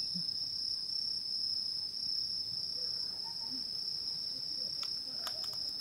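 Crickets chirring in a steady, high-pitched, unbroken trill. A few faint clicks come near the end.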